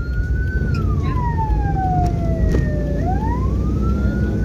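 Vehicle siren wailing, its pitch gliding slowly up and down about every four seconds, over a steady low rumble of engine and road noise.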